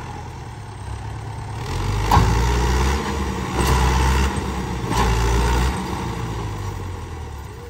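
Diesel tractor engine working hard under heavy load, trying to drag a loaded sugarcane trolley that is stuck in soft ground. It swells about one and a half seconds in, surges three times, then eases back toward the end.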